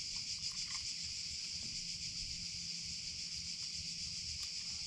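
A chorus of cicadas: a steady, high-pitched shrill buzz.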